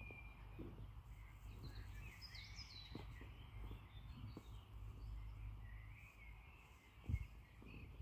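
Faint songbirds chirping and warbling in short phrases, over a low steady rumble, with a few soft thuds, the clearest about seven seconds in.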